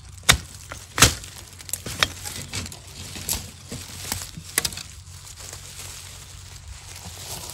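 A metal digging blade chopping into the base of a bamboo shoot: several sharp chops in the first two seconds, the loudest about a second in. Lighter clicks and the crackle of dry bamboo leaves follow as the cut shoot is handled.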